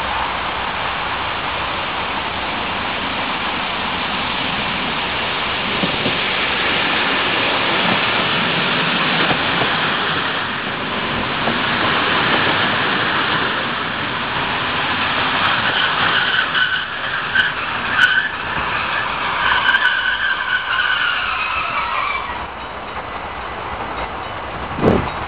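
NS Mat '64 electric multiple unit rolling into the station and braking, its brakes squealing in wavering high tones over the last several seconds until the train stops and the squeal cuts off. A short knock follows near the end.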